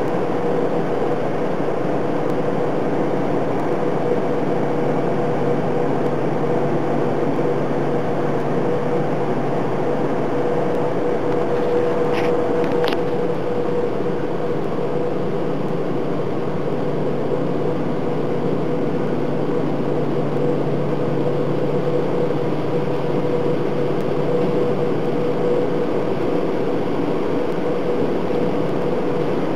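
Automatic car wash tunnel machinery running steadily, heard from inside the car: a constant rushing noise with a steady hum. A couple of brief clicks come about halfway through.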